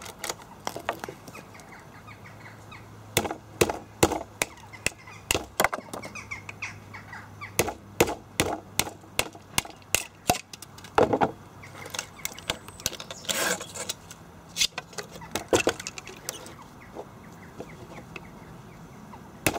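Hammer blows on a screwdriver with its tip cut off, used as a punch to drive the cut copper windings out of an electric motor: irregular sharp knocks, some in quick runs, thinning out near the end.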